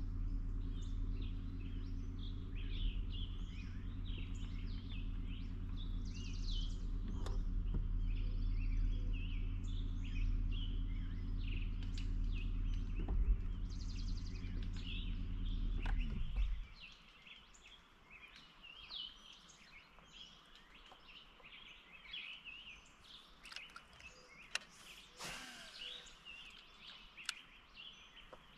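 Bow-mounted Minn Kota electric trolling motor running with a steady hum, switched off about sixteen seconds in. Small birds chirp throughout.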